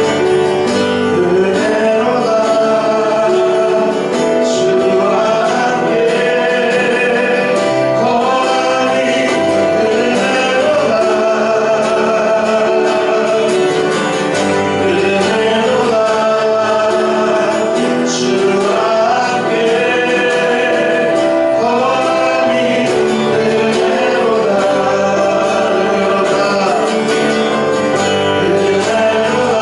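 Church praise team singing a worship song, voices over steady instrumental accompaniment.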